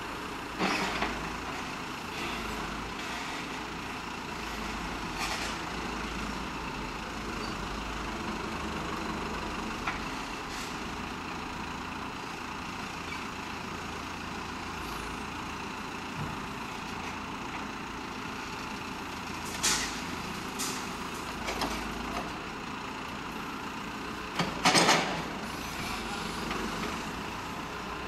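Caterpillar backhoe loader's diesel engine running steadily while it loads earth and broken asphalt into a dump truck, with a few short, sharp clatters; the loudest comes near the end.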